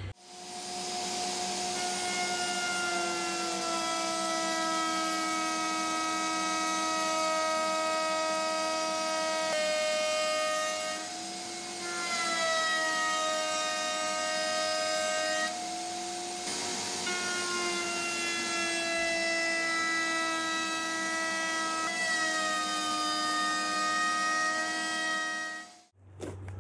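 Table-mounted wood router running at full speed, cutting the outer edge of a stack of glued-up wooden rings with a bit that sticks up from the table. Its steady whine dips in pitch now and then as the cut loads it. It starts just after the opening and switches off near the end.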